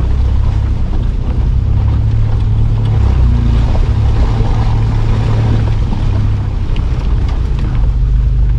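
Mitsubishi Pajero engine running steadily under load while the 4x4 drives off-road, heard from inside the cabin as a loud, low drone.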